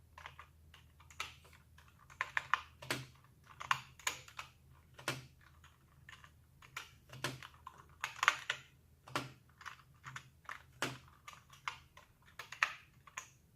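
Typing on an Enhance GX-K3 semi-mechanical keyboard: irregular keystroke clicks, some in quick runs, with short pauses between.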